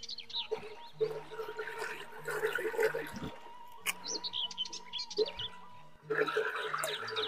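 Birds chirping over soft background music with a slow stepping bass line, with close-up chewing and mouth sounds of eating rice and raw leafy greens.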